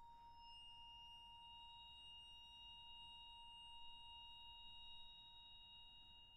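Several faint, pure, high ringing tones at different pitches held steady, a sustained metallic resonance from the percussion quartet's instruments with no new strikes.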